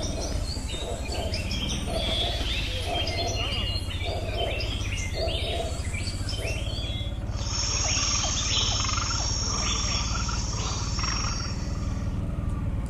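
ATV engine running at low speed with a steady low rumble, while twigs and brush crackle and scrape against the machine as it pushes through undergrowth. A steady high-pitched whine joins in about seven seconds in and stops near eleven seconds.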